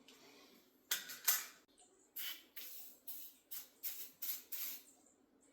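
A wall light switch being flicked on and off repeatedly: about eight sharp clicks, roughly two a second, starting about a second in.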